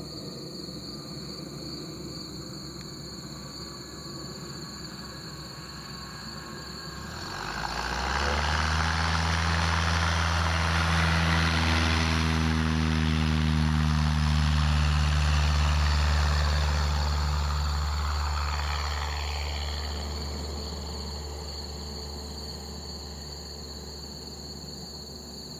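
Cessna 172's engine and propeller at takeoff power during a touch-and-go. The drone grows suddenly louder about seven seconds in as the plane rolls past on its takeoff run, drops in pitch as it goes by, then fades as the plane climbs away.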